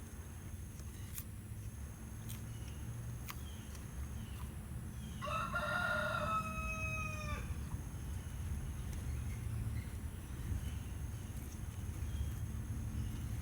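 A rooster crows once, about five seconds in: a single pitched call of about two seconds that falls away at the end, over a steady low rumble.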